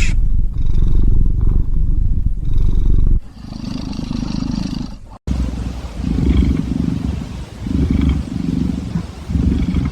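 A cat snoring loudly. First comes a long, unbroken low rumble; after a short break, separate snores repeat about once a second.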